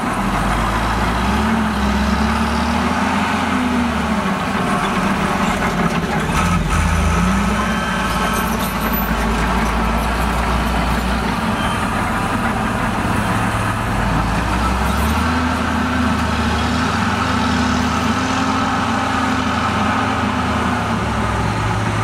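Caterpillar motor grader's diesel engine working steadily while blading dirt, its pitch slowly rising and falling over several seconds.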